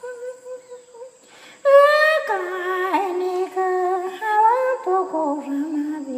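A single high voice humming or chanting a slow, wordless-sounding melody in long held notes with a wavering vibrato. It is soft at first and grows louder about a second and a half in, and the pitch steps gradually lower toward the end.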